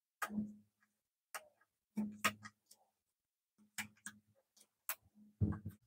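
Tarot cards being flipped and laid one by one onto a stack on a wooden table: about ten soft card clicks and taps at an uneven pace, the loudest near the end.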